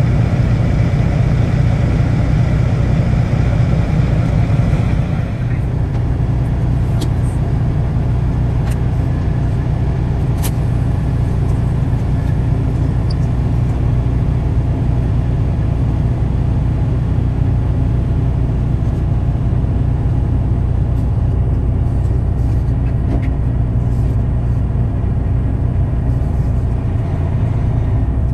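Semi truck's diesel engine running at a low idle as the truck creeps forward, a steady low rumble heard from inside the cab. About five seconds in, a higher hiss stops and the sound drops slightly, and a few faint clicks follow.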